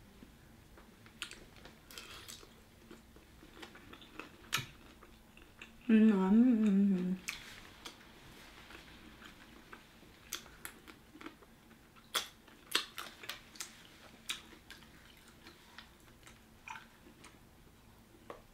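Hands peeling sauce-coated seafood shells and chewing: scattered small sharp clicks and wet smacks throughout. About six seconds in, a short wavering hum of enjoyment from the eater lasts about a second.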